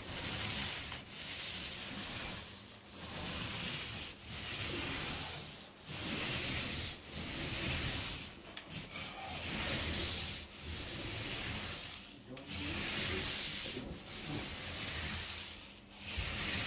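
Paint roller on an extension pole rolling paint across a drywall ceiling: a steady run of back-and-forth strokes, each a soft swish about a second long, about a dozen in all.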